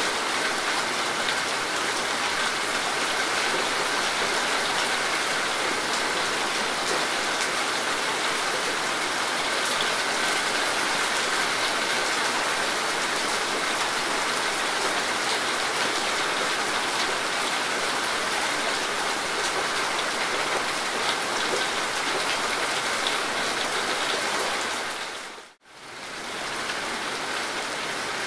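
Steady rain falling on grass and leaves, an even, dense hiss. Near the end it fades out for a moment and comes back a little quieter.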